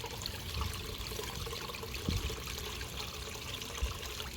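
Backyard pond waterfall running, water splashing and trickling steadily, with a couple of soft low bumps.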